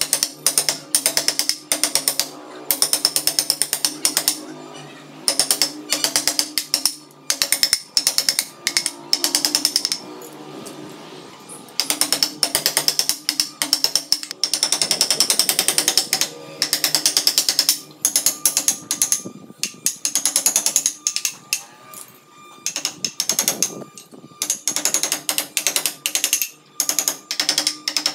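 Wooden carving mallet striking the handle of a chisel driven into wood, a quick run of sharp knocks at about five a second, broken by short pauses between runs.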